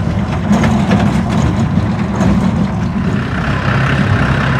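Tractor diesel engine running steadily, with a low hum. Its note changes about three seconds in.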